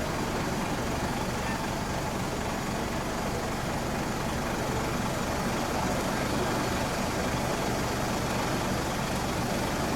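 Truck engine running steadily at idle, a low even rumble.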